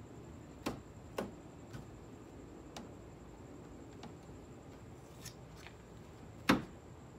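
Scattered light clicks and knocks of hardware and plastic parts being handled while a stabilizer is fitted to a car's rear wing. There is a sharper, louder knock near the end.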